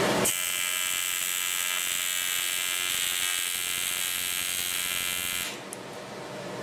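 AC TIG welding arc on 7075 aluminum plate: a steady, high buzz that starts about a quarter second in and cuts off about five and a half seconds in, leaving a softer hiss.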